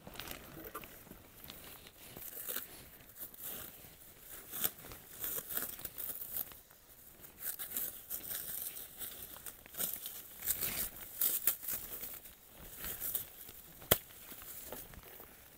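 Packaging being crumpled and torn open by hand, heard as irregular crinkling rustles with a sharp click near the end.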